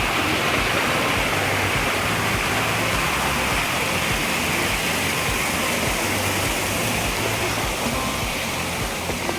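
Mountain stream rushing steadily, easing a little near the end.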